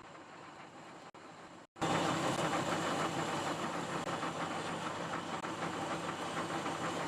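Metal lathe running under power while machining steel tubing: a steady mechanical running noise that jumps louder about two seconds in.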